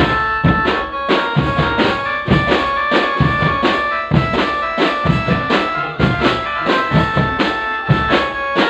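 Music with a steady, driving drum beat and a melody of held notes over it.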